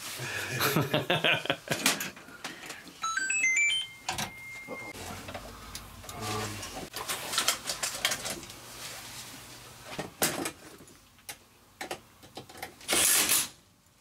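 Hands-on wiring work at a residential electrical panel: clicks, knocks and rattles of cables and metal, with a quick run of rising electronic beeps ending in a held tone about three seconds in. Near the end a cordless drill-driver runs briefly, driving a screw into a steel box cover.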